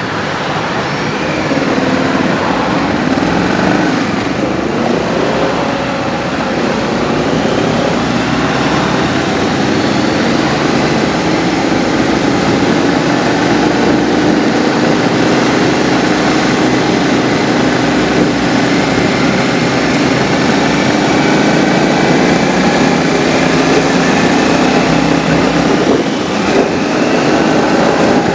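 Motorcycle engine heard from its own rider's seat, mixed with rushing wind, as the bike pulls away and rides at town speed; the engine note rises and falls in the first few seconds and then holds fairly steady.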